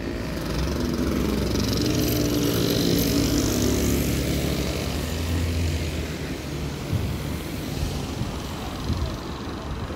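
Street traffic: a car drives past close by, its engine hum swelling over the first few seconds and then easing off.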